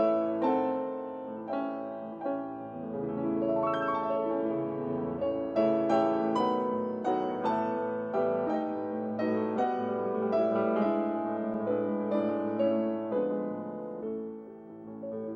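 Slow, gentle solo piano music, single struck notes and chords ringing over one another.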